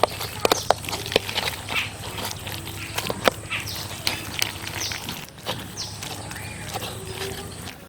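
Irregular sharp clicks and knocks, most of them in the first few seconds, with several short high chirps falling in pitch from small birds.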